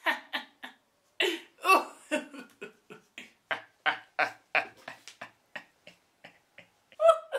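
Young men laughing hard, in a fast run of short 'ha' bursts about three a second, with a louder burst near the end.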